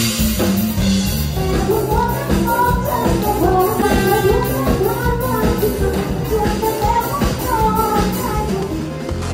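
A woman singing a melody into a microphone over a live band with drums, at a loud amplified concert.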